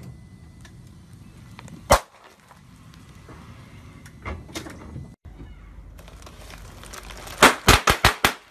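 An inflated rubber glove bursting under a car tyre with a single loud pop, about two seconds in. Near the end, a quick string of sharp pops as plastic air-column packaging bursts under the tyre.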